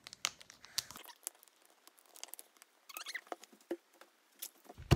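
The tear-off zip strip of a toy box's packaging being pulled open: irregular crackling and snapping, with a louder snap near the end.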